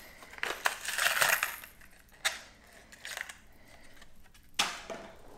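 Crinkling plastic packaging and sharp clicks as a small crankbait lure is handled and taken out of its box. The crinkling comes mostly in the first second and a half, followed by a few scattered clicks.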